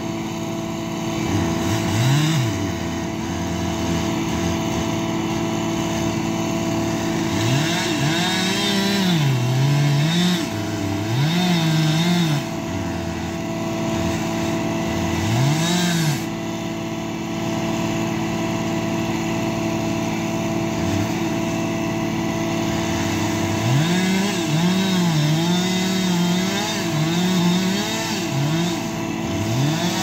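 Chainsaw cutting at the base of a tree trunk, its engine revving up and dropping back again and again, over the steady running of a heavy loader's engine close by.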